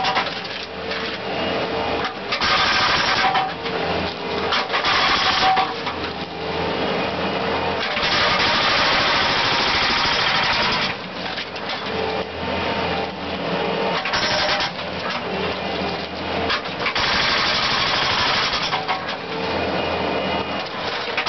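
Concrete-demolition equipment breaking up concrete: loud bursts of hammering, some lasting a few seconds, over a steadily running engine.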